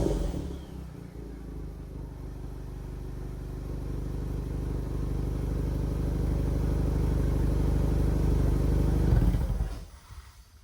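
Tuned Volkswagen Jetta 1.4 turbocharged four-cylinder engine (Unitronic Stage 2) dropping back from a rev and then idling steadily. The idle stops about nine and a half seconds in.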